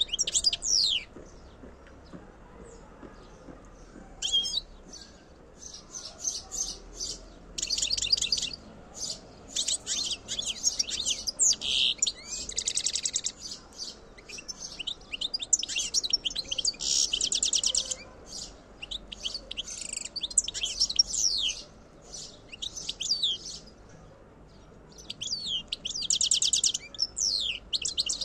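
European goldfinch singing: phrases of rapid twittering and trills, separated by short pauses.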